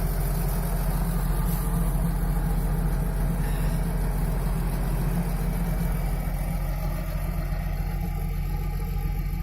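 GAZ-63 truck engine idling steadily with an even, rapid firing pulse.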